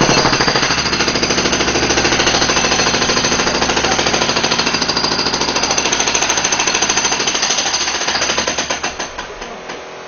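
Jackhammer hammering at close range, a rapid, continuous, loud pounding that tails off and stops about nine seconds in.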